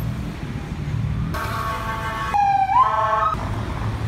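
Street traffic rumbling, with a short siren call over it starting about a second in. It holds a steady tone, then switches to a lower tone that swoops upward and cuts off after about two seconds.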